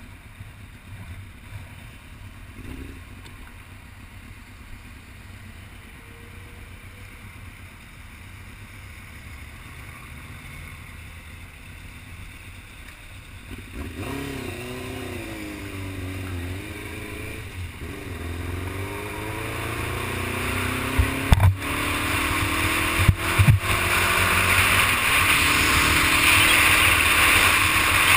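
Kawasaki ZX-6R's inline-four engine running quietly at idle, then, about halfway through, revving up and down as the bike pulls away. Wind noise grows as speed builds, and two sharp knocks come a couple of seconds apart late on.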